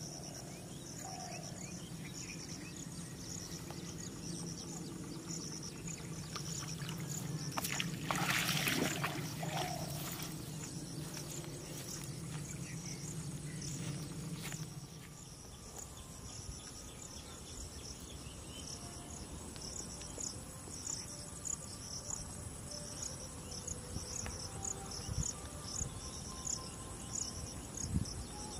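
Crickets chirping steadily in short, evenly spaced pulses, with a low outdoor hum underneath that fades about halfway through. About eight seconds in there is a brief louder rush of noise.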